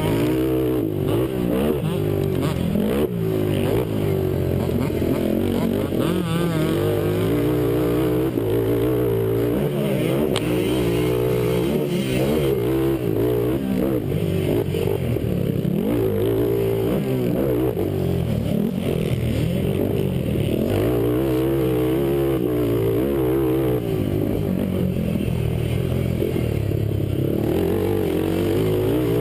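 Honda race quad's engine revving hard and dropping off again and again as the rider accelerates out of turns and backs off into them, heard close up from the rider's helmet camera.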